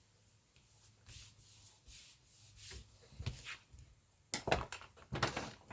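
Rubbing and scraping along a freshly glued book spine as it is pressed down, then louder rustling and handling of the book's paper and cover near the end.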